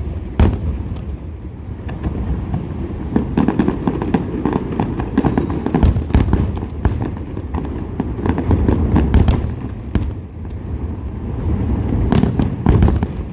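Fireworks display: many sharp bangs and crackles, coming in clusters, over a continuous low rumble of echoing booms.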